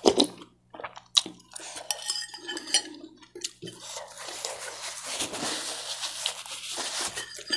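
Metal spoon and fork clinking and scraping against a ceramic bowl while eating noodles, with sharp strikes near the start and about a second in. This is followed by a soft, steady hiss lasting about three seconds.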